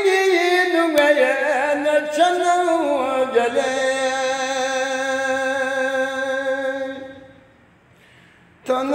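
A man singing a Balti qasida unaccompanied, holding one long line that slides down in pitch and fades out about seven seconds in. The next phrase starts near the end.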